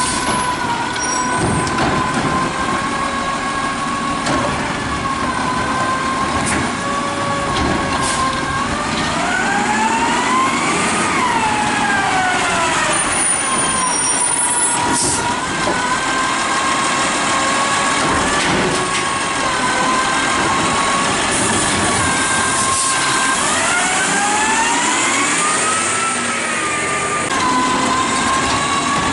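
2010 DaDee Scorpion automated side-loader garbage truck running, its hydraulic pump giving a steady whine. Twice the whine rises in pitch and falls back as the engine revs to power the lifting arm, with a few short knocks in between.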